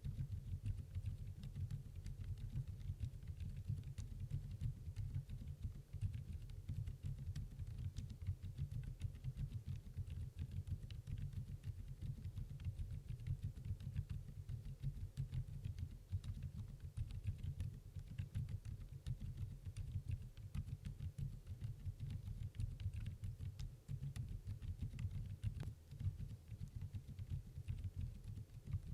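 Steady typing on a Redbean The Better A1 mechanical keyboard with Outemu Lime silent linear switches: a fast, irregular run of muted keystroke clicks.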